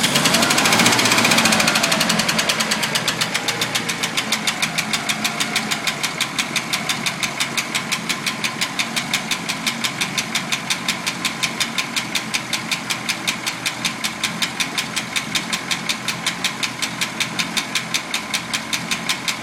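Packard engine running with a sharp, even lifter tick, about four or five ticks a second. It is revved higher in the first couple of seconds, then eases down to a steady idle with the ticking continuing throughout.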